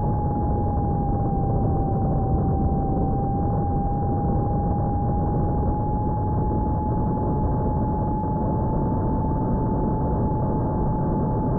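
Electric motor and propeller of an Esky Eagle FPV plane in flight, heard from its onboard camera: a steady single-pitched whine that holds nearly level, over a constant rush of wind noise.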